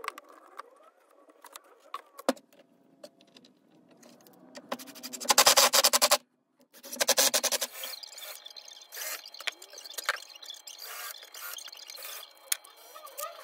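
Clicks from a quick-release bar clamp being worked, then a cordless drill driving screws into plywood in two loud bursts of rapid, even clicking, the first about five seconds in. Scattered knocks and short bursts of tool handling follow.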